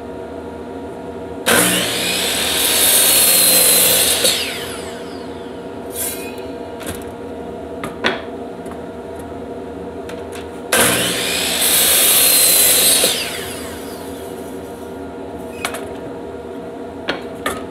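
Compound miter saw cutting a wooden shelf board twice. Each time the motor spins up, runs through the cut for about two seconds, then the blade winds down with a falling pitch while the saw is held down. A few sharp wooden knocks come between the cuts as the board is repositioned, over a steady background hum.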